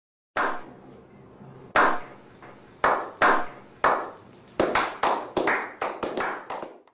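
A slow clap by a small group: single hand claps a second or more apart at first, quickening into faster, overlapping clapping over the last couple of seconds.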